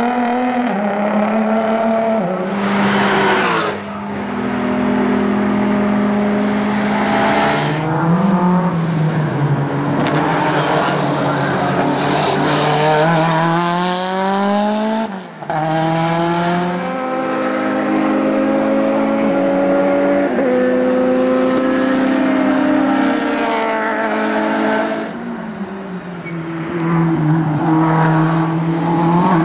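Race car engines at full throttle as several cars lap the circuit in turn. The pitch climbs through each gear and drops sharply at the upshifts.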